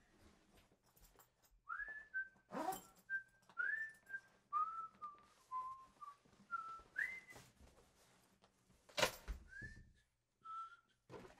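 A series of short, high whistled chirps, each sliding up and then held briefly, about one a second, with a few sharp clicks, the loudest about nine seconds in.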